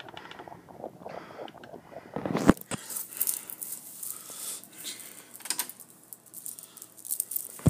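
Irregular rustling handling noise with a few short, sharp clicks, the loudest about two and a half seconds in.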